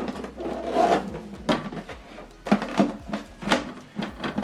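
Handling knocks and clicks, several in a row, as a printer's power cord plug is pushed into a power socket.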